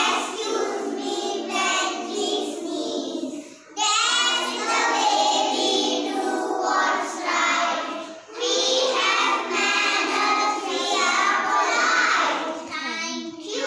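A group of young children singing together, in phrases with short breaks about four and eight seconds in.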